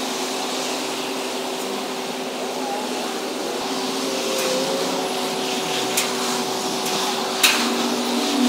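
Mobile crane's diesel engine running steadily under load, a continuous hum, while it lifts a structural steel frame. A few sharp knocks come in the second half.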